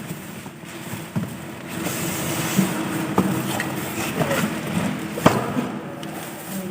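Air-cooled Weima 12 HP engine running steadily on a test run, with a few sharp knocks or clicks over it, the loudest about five seconds in.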